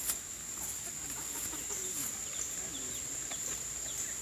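Chickens clucking in low, short calls, with a steady high insect buzz behind them. A sharp click comes just after the start.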